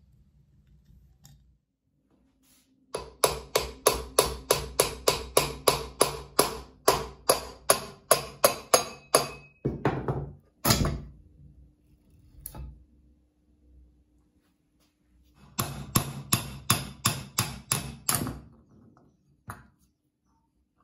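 Rapid hammer blows on the cast end cover of a Hitachi bench grinder's motor, about three a second in two long runs with a couple of heavier knocks between them, knocking the cover loose from the motor body. Each blow rings briefly in the metal housing.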